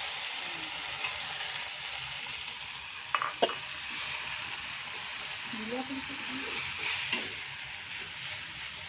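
Sliced chilies and ground chili paste sizzling steadily in hot oil in a small frying pan, being stirred, with two sharp utensil clinks against the pan a little after three seconds in.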